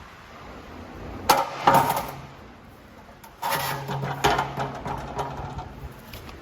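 Handling knocks as things are moved about: two sharp knocks close together a little after a second in, then from about halfway a longer run of scraping and knocking.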